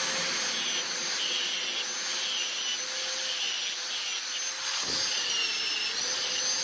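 Electric grinder running with a high steady whine, its abrasive disc grinding a small steel piece held in locking pliers; the whine wavers slightly in pitch.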